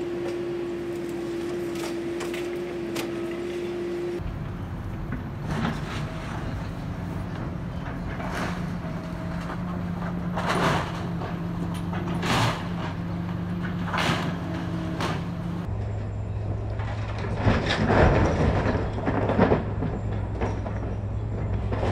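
Excavator's diesel engine running steadily while its arm tears into a wood-framed building, with repeated cracks and crashes of splintering timber and falling debris, loudest in a cluster near the end.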